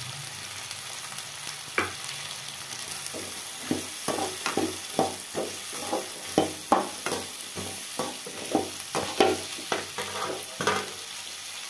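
Whole shallots, chillies and curry leaves sizzling in hot oil in a metal kadai, with a perforated steel skimmer scraping and stirring through them. A single knock comes near two seconds in; from about three seconds in the stirring goes in quick repeated strokes, about two to three a second.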